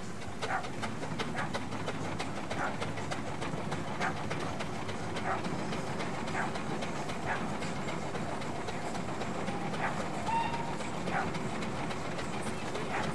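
A steam engine working slowly, with a steady low rumble and sharp exhaust beats coming roughly once a second.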